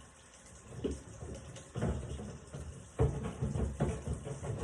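Water sloshing and dishes knocking in a kitchen sink during hand dishwashing, an uneven run of clatter and splashing that gets louder about three seconds in.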